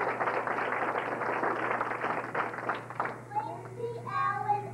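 A hubbub of many children's voices, then about three seconds in a group of children starts singing a song together.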